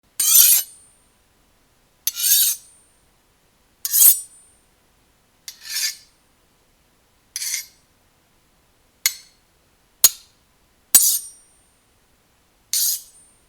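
A knife blade being sharpened in nine separate strokes, each a short, high, hissing scrape with a thin metallic ring. The strokes come about one every one to two seconds, closer together in the middle.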